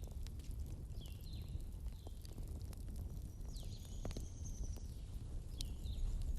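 Wood bonfire burning, with irregular sharp crackles and pops over a low rumble. Short high whistling chirps recur every second or so.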